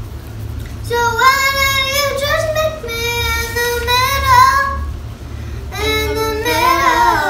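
Pop music with a high voice singing long, sliding notes over a steady low bass, with a short break in the vocal about five seconds in.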